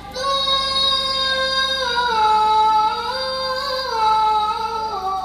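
A boy's voice reciting the Quran in melodic tilawah style into a microphone. It is one long unbroken phrase of high held notes that step down about two seconds in, rise again around three to four seconds in, and fall once more near the end.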